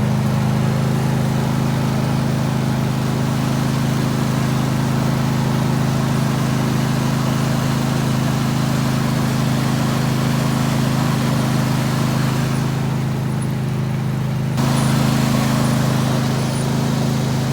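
Riding lawn mower's engine running steadily, with a slight jump in level near the end.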